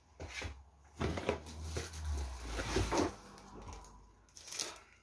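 Hands handling packaging: irregular rustling of paper and plastic with light knocks and a low rumble of bumps about a second in.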